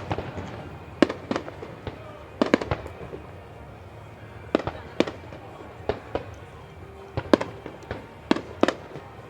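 Aerial firework shells bursting in a display: a string of sharp bangs at irregular intervals, some coming in quick pairs or clusters.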